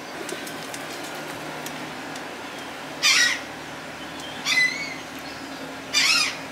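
A bird calling three times: short calls about a second and a half apart, the last near the end.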